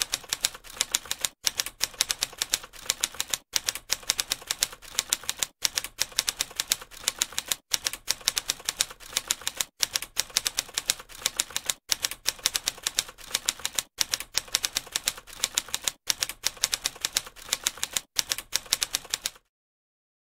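Typewriter sound effect: rapid, steady clatter of keystrokes, broken by a short pause about every two seconds, stopping about a second before the end.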